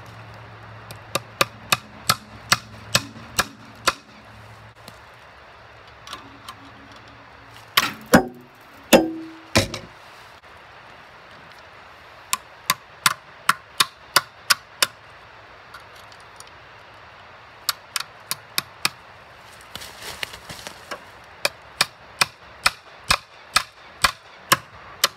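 Hammer driving fencing staples into a wooden fence post to hold barbed wire: runs of quick metal-on-metal taps, about three a second, with a few heavier blows that ring briefly about eight to ten seconds in.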